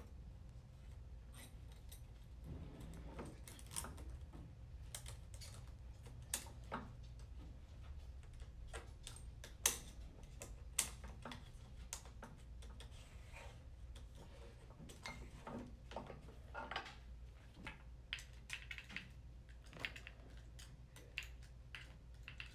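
Faint, scattered clicks and light metal clinks of transmission parts being handled as the forward clutch drum is worked into the CVT case, with two sharper clinks about ten and eleven seconds in, over a steady low hum.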